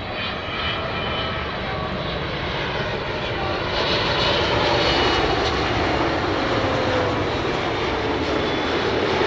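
Large jet airliner passing close on its landing approach. The engine noise builds to a peak about four seconds in and stays loud, with whining tones that slowly fall in pitch.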